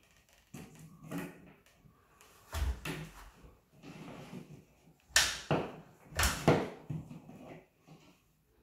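Cable rods and electrical cable being worked through holes in a plasterboard ceiling: a string of scraping, rustling knocks, with a dull thump about two and a half seconds in and the loudest scrapes about five and six seconds in.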